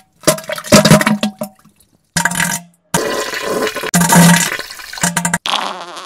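Diarrhea sound effects: about four wet, sputtering farts with splattering, separated by short pauses, the third the longest.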